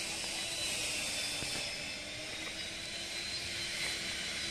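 Steady background hiss with a thin, high, steady whine and a faint low hum, and no distinct events.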